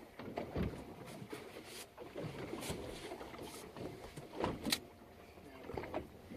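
Irregular knocks and thumps on a fishing boat over a faint steady hum, the loudest knock about four and a half seconds in.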